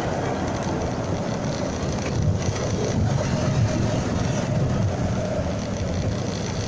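Motorcycle riding in town traffic, heard from a dashcam mounted on the bike: a steady low rumble of engine, tyres and wind on the microphone.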